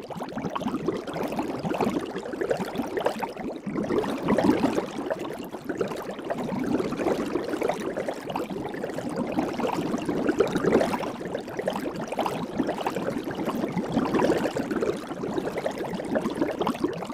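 Soapy water bubbling, a dense crackle of many tiny bubble pops that carries on steadily.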